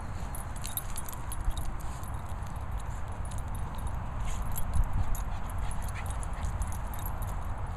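Small dogs moving about and sniffing on grass, with faint clinking and a low rumble throughout, and brief louder knocks about a second and a half in and again around five seconds.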